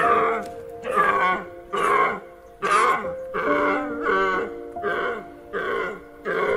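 A deer stag giving short, harsh calls, repeated about once a second, over a steady music backing.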